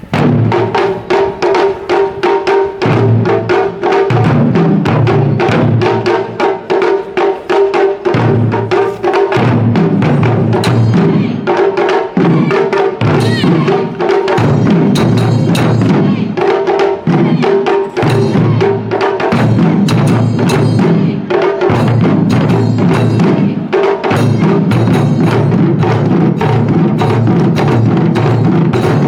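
Festival drum performance: rapid, driving drum strikes and sharp wooden clacks, with a steady pitched note held beneath and heavier low drum hits coming in waves.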